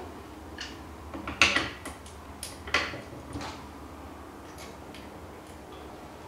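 Handguard of a Gunpower SSS air rifle being handled and fitted onto the rifle: a string of short clicks and knocks, the loudest about a second and a half in, thinning to a few faint ticks.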